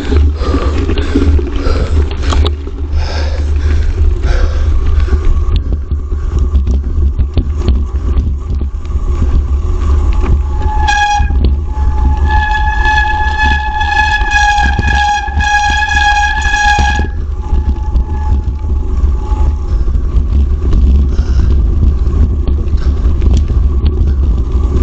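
Wind buffeting the microphone and the rattle of a mountain bike riding a rough trail. A steady, horn-like tone sounds for about six seconds midway, then fades out.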